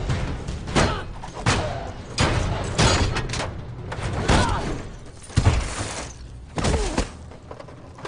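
Fight sound effects: a string of heavy blows and thuds, one every half second to a second, with short grunts among them, over a steady low rumble. The hits stop about a second before the end.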